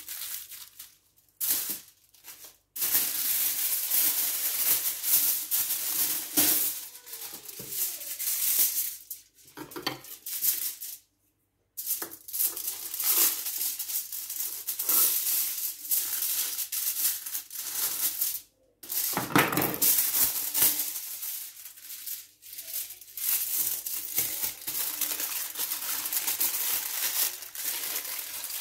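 Aluminium foil and a plastic bag crinkling and rustling as a parcel of batter is wrapped by hand, in long stretches broken by a few sudden brief silences.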